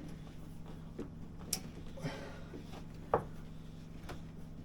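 A few scattered light clicks and knocks of a water line and fitting being worked together by hand, one sharper knock about three seconds in, over a steady low hum.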